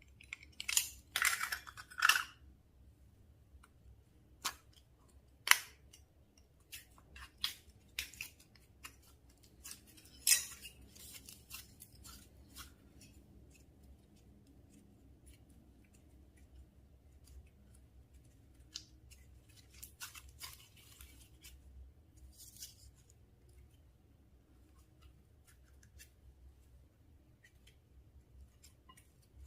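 Slime being worked by hand, giving sharp sticky clicks and crackles: a dense cluster in the first couple of seconds, then scattered single clicks that thin out and grow fainter.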